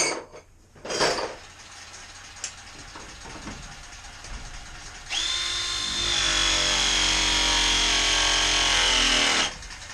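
Cordless power tool working on copper water pipe: a few handling clicks, then about five seconds in its motor starts and runs steadily for about four seconds with a high whine that sags slightly under load, then stops.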